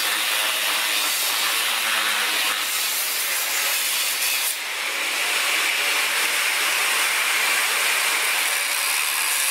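Electric angle grinder running against a steel plate, a steady, loud grinding hiss with a brief drop in level about four and a half seconds in, then cutting off suddenly.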